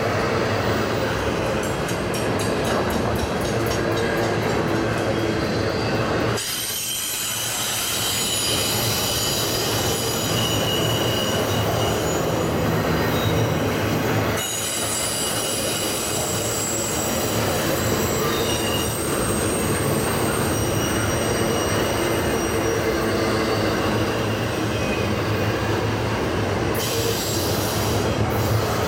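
Intermodal freight train's cars rolling past close by, a steady rumble of wheels on rail with high-pitched squealing from the wheels.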